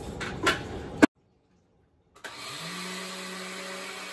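A couple of clicks as the blender jar is handled, then, after a second of silence, a countertop blender motor starts up, its hum rising briefly in pitch before settling into a steady run as it grinds soaked rice and urad dal into dosa batter.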